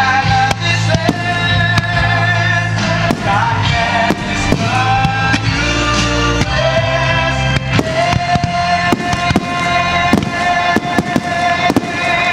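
Fireworks display: shells and fountains bursting in a quick, irregular string of sharp bangs that come thicker in the second half, over music playing with a steady tune.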